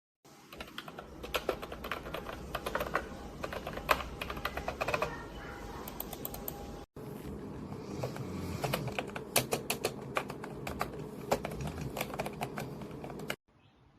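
Typing on a wireless keyboard with round, typewriter-style keycaps: a fast, uneven run of key clicks. It breaks off for an instant near the middle and stops shortly before the end.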